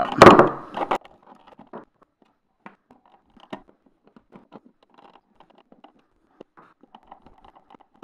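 Hand screwdriver turning the mounting screws of a wall outlet receptacle into its electrical box: faint, scattered small clicks and scrapes of the tip working in the screw heads.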